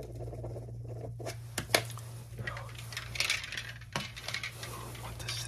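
Close-miked ASMR trigger sounds: sharp clicks and taps on small hard objects, mixed with scratchy rustling, over a steady low hum. The loudest is a single sharp click a little under two seconds in.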